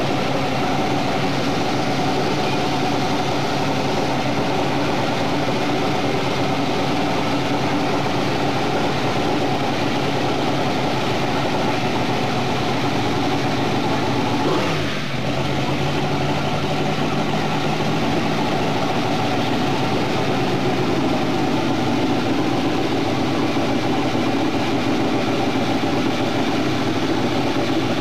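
A race boat's engine running steadily in the pits, its note dipping briefly about halfway through before settling again.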